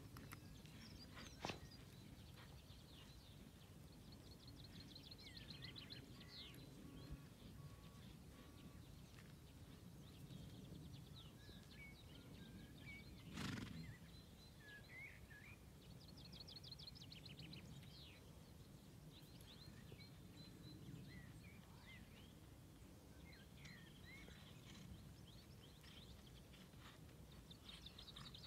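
Faint outdoor quiet with small birds singing: repeated quick trills and short gliding notes recur throughout, over a low steady rumble. There is one brief louder noise about halfway through.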